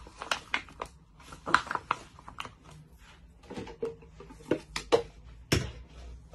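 Light clicks, taps and scrapes of a silicone spatula and plastic containers on a countertop: the spatula working melted chocolate in a plastic tub, then a sharper knock a little after five seconds in as a plastic measuring jug is handled.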